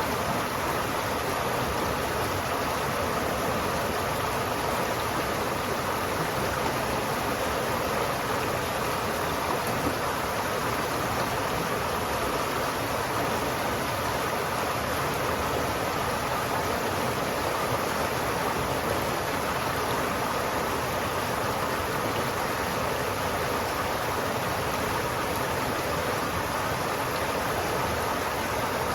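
River water flowing steadily: an even, continuous rush of water with no breaks or changes.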